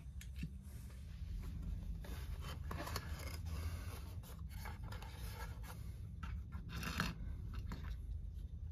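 Light scraping, rubbing and small clicks, irregular and close, as of small parts being worked by hand, over a low steady hum.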